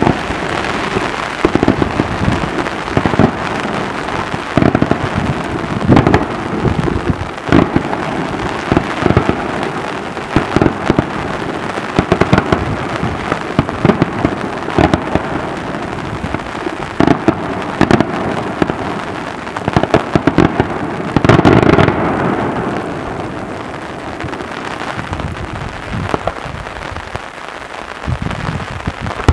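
Daytime fireworks: a steady crackling din with loud bangs going off at irregular intervals, the heaviest burst about 21 seconds in.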